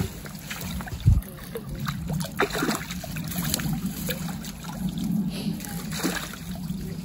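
Carp splashing in a landing net at the water's edge, with scattered splashes and trickling water. A loud low thump about a second in, over a steady low hum.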